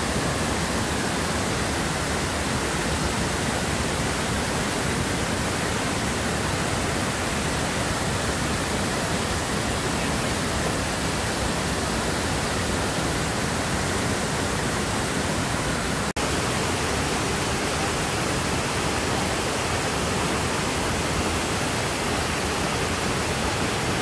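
Wide, tiered waterfall pouring into its plunge pool: a loud, steady rush of falling water with no let-up, broken only by a split-second dropout about two-thirds of the way through.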